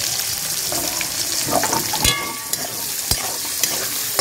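Chopped onions sizzling in hot oil in a metal kadai, with a metal spatula scraping and knocking against the pan as they are stirred. The first knock, about halfway through, rings briefly.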